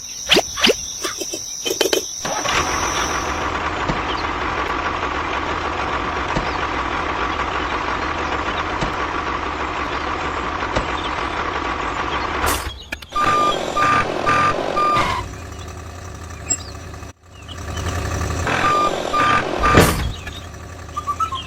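A truck engine running steadily, then a reversing alarm beeping in two sets of four. A few sharp clicks come in the first two seconds.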